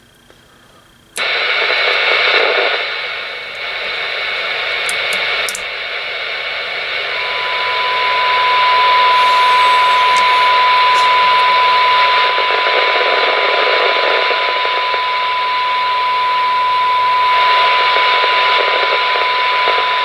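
Kenwood TM-621A's speaker hissing loudly once the squelch opens, about a second in. From about seven seconds in, a steady single test tone from the service monitor's signal generator comes through the hiss as a weak 2-metre signal is received during a sensitivity check.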